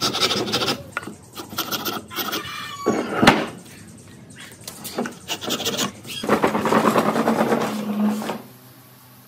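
Wood on wood: a wooden marking gauge and timber blanks scraped and rubbed across a wooden workbench in a run of short strokes, with a sharp knock about three seconds in and a longer scrape from about six to eight seconds in.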